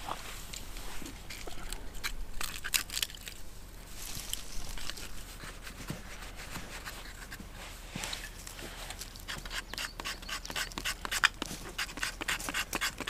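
Knife blade shaving a dry wooden stick into kindling: a run of short, sharp scraping strokes, coming thick and fast near the end.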